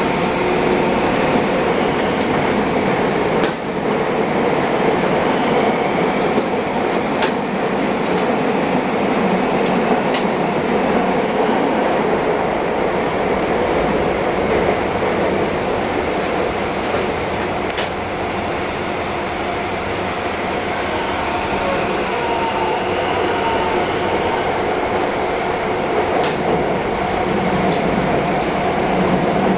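Fukuoka City Subway 1000 series train running between stations, heard inside the car: a steady rumble and hum with a few brief clicks from the wheels on the rails.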